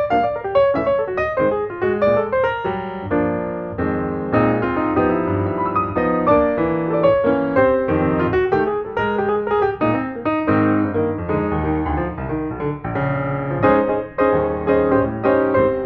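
Background piano music with many quick notes and chords.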